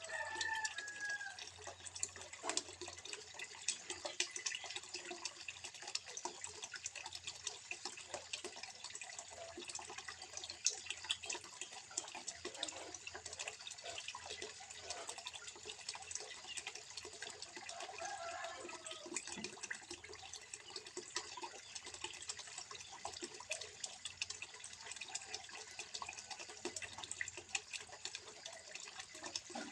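Water trickling and splashing steadily into a small fish pond, with many small drips and splashes.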